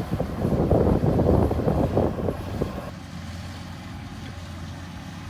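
Rice combine harvester's engine running: rough and crackly for about three seconds, then an abrupt change to a steadier, lower hum.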